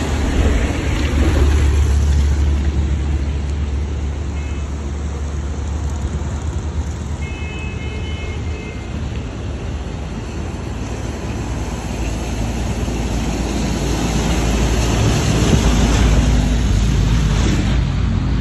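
Steady rush of the flooded Indus River churning past the Sukkur Barrage, with wind buffeting the phone's microphone as a heavy low rumble that swells near the start and again near the end. Two brief high tones sound about four and seven seconds in.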